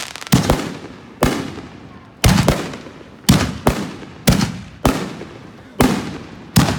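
Fireworks exploding: a run of about a dozen sharp, loud bangs, roughly two a second and sometimes in quick pairs, each followed by a fading crackle and echo.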